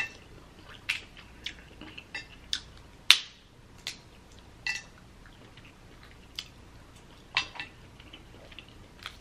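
Crab-leg shells cracked and picked apart by hand, close to the microphone: scattered sharp cracks and clicks about once a second, the loudest crack about three seconds in.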